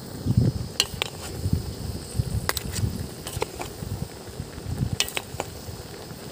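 A metal ladle clinking and scraping against a wok as it stirs and ladles crabs simmering in coconut milk: about a dozen sharp, irregular clicks over a low, uneven rumble.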